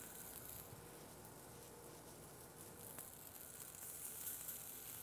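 Faint hiss of marinated yellowfin tuna steaks searing on a very hot gas grill, with a single sharp click about three seconds in.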